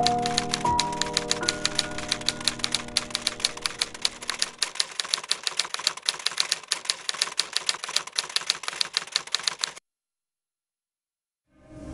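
Rapid, even typewriter keystrokes, about six a second, over music tones that fade away during the first few seconds. The typing cuts off abruptly near the end, followed by a short silence and the soft return of music.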